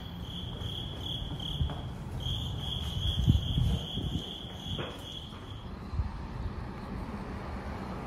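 Insect chirping in a high, evenly pulsed call, about three pulses a second, with a short break and then stopping about two-thirds of the way through. A few low thumps sound in the middle.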